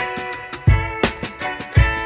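Background music with plucked notes over a steady kick-drum beat.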